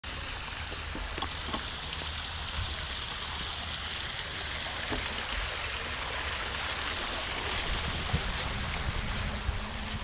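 Fountain water splashing into its basin in a steady hiss, with a few short high bird chirps over it.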